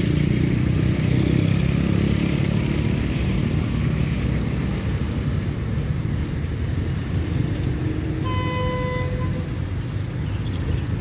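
Low, steady diesel engine rumble, strongest in the first few seconds, with a single horn blast about a second long a little past eight seconds in, typical of a departing diesel train sounding its horn.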